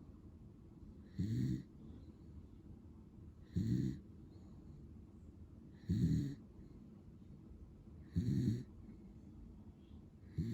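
Beagle snoring in its sleep: a short snore about every two and a half seconds, four in a row and a fifth just starting at the end.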